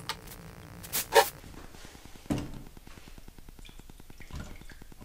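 Hand-handling noises over an engine bay: a sharp click about a second in, then a couple of dull knocks as a plastic oil drain pan is brought against the engine to catch the old oil filter cartridge.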